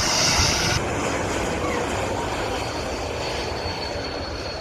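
Embraer E2 jet's Pratt & Whitney geared turbofan engines running with a steady roar. The sound changes abruptly about a second in. After that a fainter roar continues with a thin, steady high whine.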